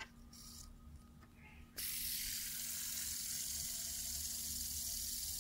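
Green Batman fidget spinner set spinning about two seconds in, then a steady whirring rush from its bearing, a spinner that makes a lot of noise.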